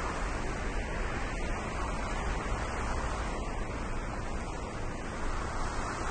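Steady rushing wind noise with no single event standing out.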